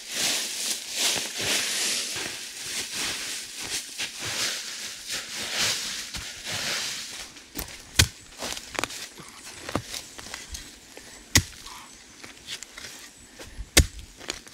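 Repeated rustling, scraping strokes through forest-floor leaves and soil. In the second half, a few sharp knocks or snaps, the loudest about eight, eleven and fourteen seconds in.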